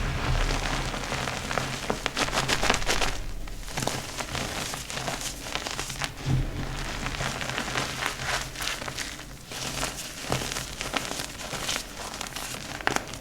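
Dyed gym chalk being crushed and crumbled: a dense, grainy crunching crackle. It eases off briefly about three and a half seconds in and again near ten seconds, then picks up again.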